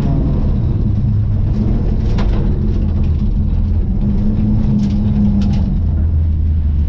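Rally car engine running at fairly steady, moderate revs, heard from inside the stripped-out cabin, with a few sharp ticks and rattles.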